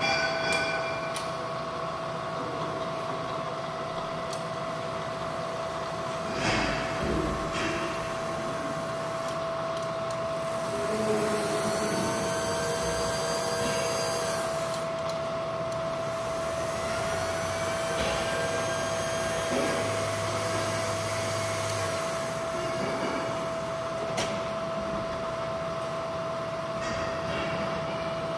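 Bridgeport vertical milling machine running, a steady motor hum with one constant whine. There is a brief knock about six seconds in, and faint higher whistling tones come and go around the middle.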